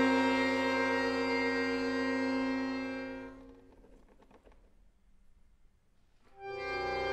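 Solo accordion holding a sustained chord of many notes that fades away about three seconds in. After about three seconds of near silence, a new sustained chord enters near the end.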